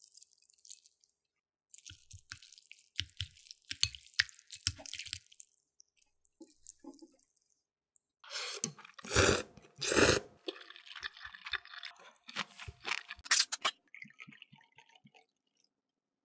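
Chopsticks working sauce-coated somen noodles on a plate, with small clicks and wet squelches. About halfway through come several louder wet eating sounds, the loudest two a second apart.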